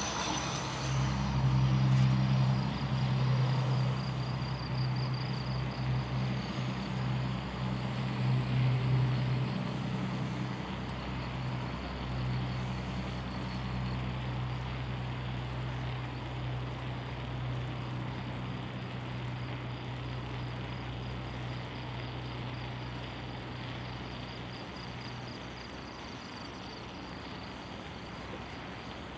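A steady low engine drone, loudest in the first ten seconds or so and slowly fading, over a constant even hiss.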